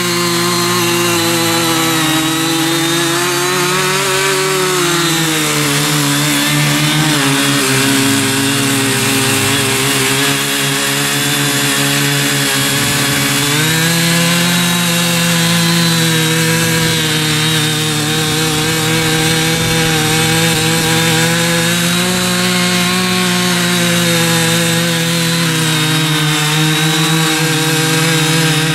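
Ching Yee CY50 mini cultivator's 43cc engine running hard as its four-row rotary tines churn uncultivated soil. The engine note sags under load a few seconds in and picks back up about halfway through.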